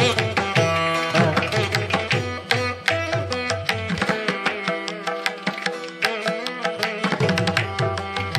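Background music: an Indian-style instrumental with hand-drum strokes over held melodic notes. The deep low drum strokes drop out for a few seconds midway.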